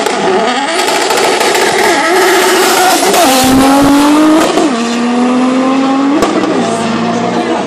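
Two cars launching in a drag race and accelerating hard down the strip. Their engine note climbs steadily and drops back at each upshift, several times over.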